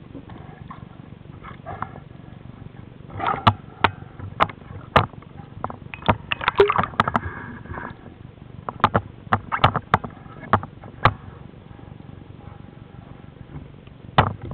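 A run of sharp clicks and knocks heard underwater, bunched together from about three to eleven seconds in with one more just before the end, over a low steady rumble of the water.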